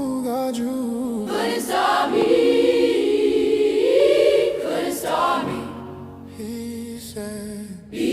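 Gospel-style song with wordless choir vocals, including a long held note in the middle.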